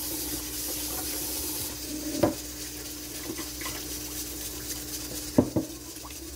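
Rice being washed by hand in a stainless steel pot at a kitchen sink: water swishing, poured off and run from the tap. The metal pot knocks sharply against the sink about two seconds in and twice more near the end, over a steady hiss and hum.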